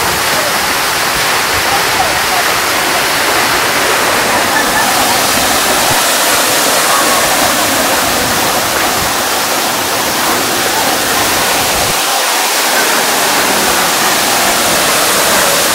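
Waterfall plunging down a rock face into a shallow pool: a loud, steady rush of falling water.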